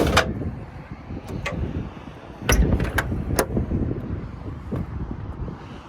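Sharp metallic clicks and a knock from a metal toolbox compartment door on a truck's service body being handled and latched, the loudest knock about halfway through, over a low rumble.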